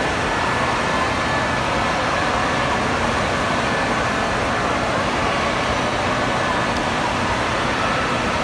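Wave pool: a steady rush and slosh of moving water mixed with the din of many swimmers' voices.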